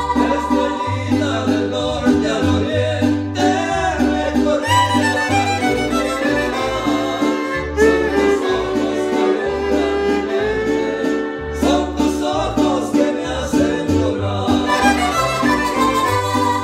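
Mariachi violins playing a tune in two parts, over a repeating plucked bass line and a steady strummed chord rhythm, with a long held note partway through.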